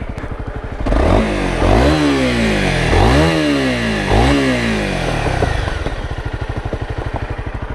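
Honda CRF250 Rally's single-cylinder 250 cc engine idling, then revved up and down four times between about one and five seconds in, and settling back to idle. The rider is blipping the throttle to find an annoying rattle on the bike.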